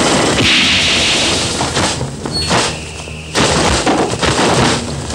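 Studio fight-scene sound effects for a sword-and-martial-arts TV fight. A hissing crash swells up just after the start and lasts about a second. Several sharp hits and thumps follow, with a sudden loud burst about three and a half seconds in.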